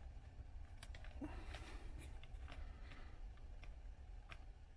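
Faint, scattered clicks and light taps of hands fitting a digital microscope's base unit into its stand mount, over a low steady hum.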